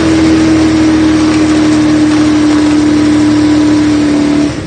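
Holden VG Commodore Maloo's 5-litre 304 V8 held at steady high revs in a burnout, with the hiss of spinning tyres. It backs off just before the end.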